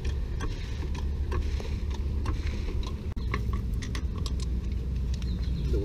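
Irregular clicks and ticks of tools on a car's jack and wheel: a hydraulic floor jack being pumped to raise the car, then the wheel bolts being undone. A steady low rumble runs underneath.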